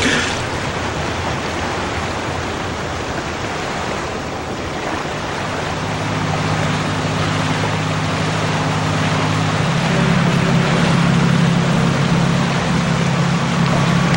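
Cartoon ocean sound effect: a steady wash of sea waves, with a splash at the start as a swimmer breaks the surface. A low steady hum joins about five seconds in and grows louder about halfway through.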